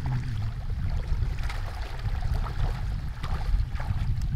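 Bare feet wading through shallow muddy water, with scattered irregular splashes, over a low rumble of wind on the microphone.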